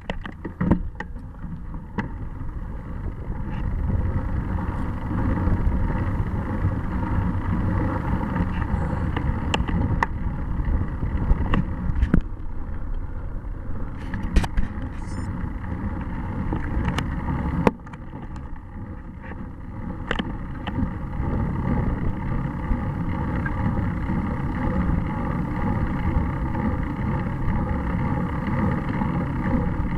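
Steady rumble of bicycle tyres on rough asphalt, heard through a bike-mounted camera with wind on the microphone, broken by scattered sharp clicks and knocks.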